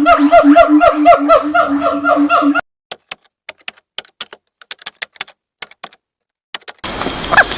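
A monkey giving a fast, even run of pitched calls, about five a second, that cut off abruptly a little over two seconds in. Scattered faint clicks follow, and near the end a short rising call comes in over a steady hiss.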